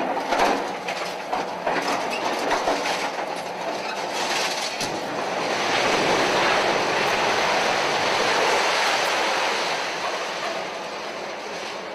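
Concrete and masonry crashing down as a section of a building collapses onto a demolition excavator. Debris clatters with many sharp knocks at first, then swells into a long rumbling crash about halfway through that eases off near the end.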